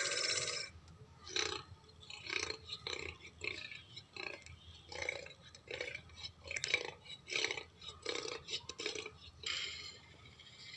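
Carcharodontosaurus sound effect: a loud drawn-out call cuts off under a second in, then a run of about a dozen short, irregularly spaced grunts, and near the end a quieter steady breathy sound.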